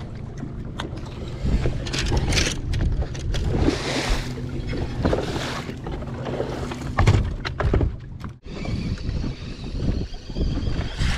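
Choppy water slapping against a bass boat's hull, with a low steady hum underneath from the bow-mounted trolling motor. The sound breaks off sharply about eight seconds in.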